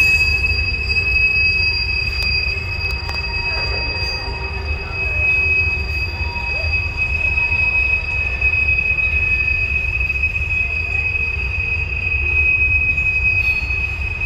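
Wheel squeal from a passing freight train of empty hopper cars: one steady high-pitched squeal over a low rumble of the rolling cars.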